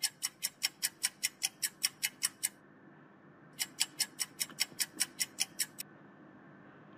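Rapid, evenly spaced ticking, about six ticks a second, in two runs: it stops about two and a half seconds in, starts again a second later and stops about six seconds in. A faint steady hum lies underneath.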